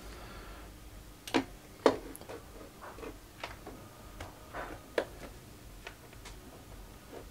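Light clicks and taps of small hard objects being handled on a workbench, about a dozen at irregular intervals over a faint background.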